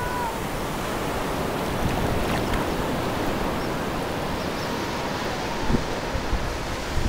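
Surf breaking and washing up over wet sand: a steady rushing hiss of water, with a few low bumps from wind on the microphone near the end.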